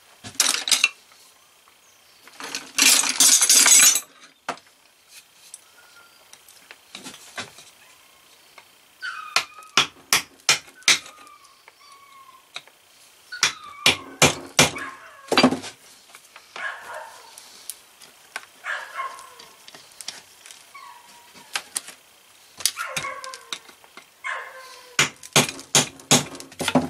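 Hand tools clinking and knocking on the metal parts of a Maytag model 72 engine as it is taken apart, with a hiss of aerosol spray about three seconds in. A dog barks and yelps at times in the background.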